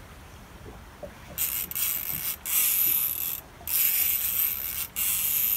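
Fishing reel buzzing as line is pulled off it by a fish taking a sturgeon rig and running. It starts about a second and a half in and comes in several long runs with short pauses between.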